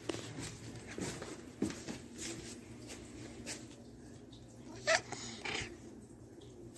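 A domestic cat gives one short meow that rises in pitch, about five seconds in, then a weaker call just after. Faint light ticks and rustles run underneath.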